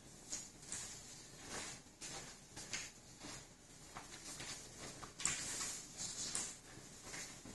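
Flat finish mop pushing wet floor finish across a tile floor: a series of faint, irregular swishes, with shoe scuffs.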